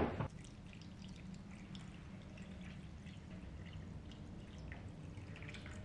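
Kelp-steeped water pouring faintly from a small stainless steel saucepan onto uncooked rice, with light dripping and trickling.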